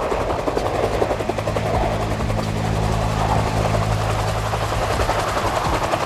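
Helicopter flying low past, its rotor blades chopping steadily over a steady engine hum that stands out most in the middle.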